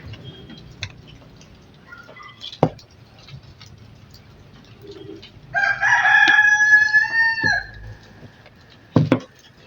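A rooster crowing once, a single long call of about two seconds starting a little past halfway. A couple of sharp knocks come before and after it.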